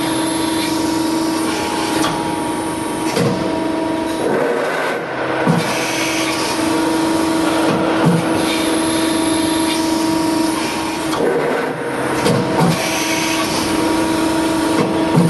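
Trumpf TrumaBend CNC press brake running: a steady machine hum with a few fixed tones, and a short brief sound every two to three seconds as it cycles.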